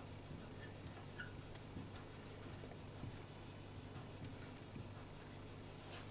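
Marker squeaking on a glass writing board as a word is written: about ten short, high squeaks in two quick groups, with a pause in the middle.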